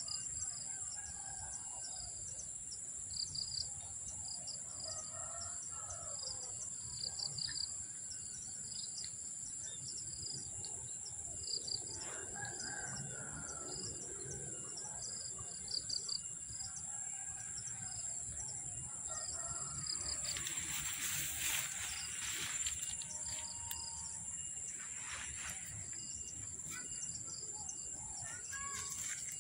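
Rural outdoor ambience: insects buzzing steadily at a high pitch, with small birds chirping over and over and a rooster crowing. About two-thirds through, a short stretch of rustling noise covers it.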